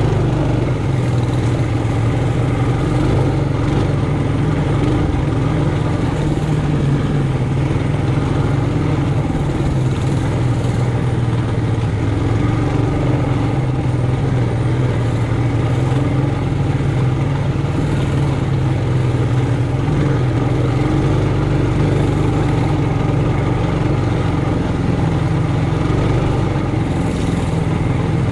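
Trailmaster Hurricane 200X mini bike's four-stroke single-cylinder engine running under way on a trail, at a fairly steady speed with small rises and falls in pitch.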